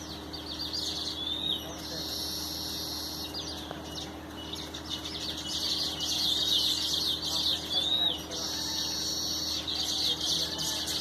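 Several birds chirping and calling in a dense chorus of quick high chirps and short swooping whistles. A high steady buzzing trill comes and goes in stretches of a second or two.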